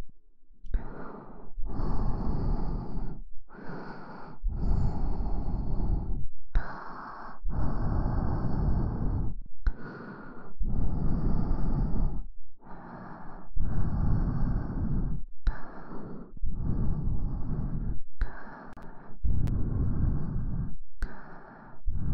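A long run of soft, breathy noise strokes right on an ASMR microphone, each lasting one to two seconds with short pauses between, about fourteen in a row.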